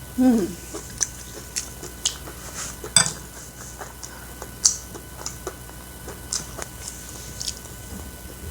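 A person chewing a fried, cheese-filled sausage, with irregular wet mouth clicks and smacks. There is a short falling 'mm' hum at the start.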